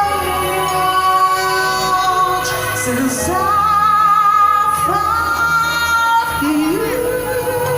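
Music with a female voice singing long held notes over sustained chords.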